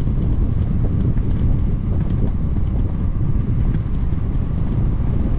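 Wind buffeting the microphone of a bicycle rider in motion: a steady, loud low rumble with no clear pitch.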